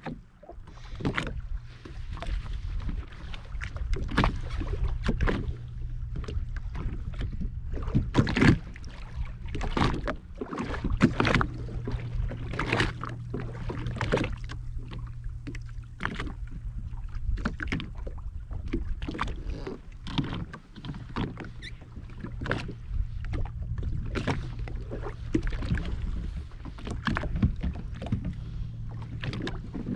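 Jet ski on the water: irregular knocks and splashes against the hull over a steady low hum.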